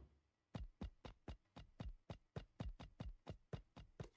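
Faint, fast run of soft thuds from a cartoon soundtrack, about five or six a second, each dropping in pitch. It starts about half a second in.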